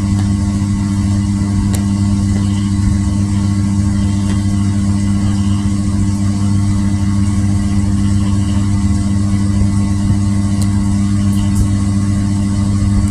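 Steady low machine hum that holds one pitch without changing, with a few faint ticks.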